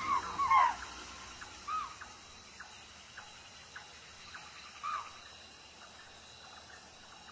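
Deer alarm calls at a stalking tiger: short, shrill, arching cries. Three come in quick succession at the start, then single calls at about 1.7 seconds and 5 seconds.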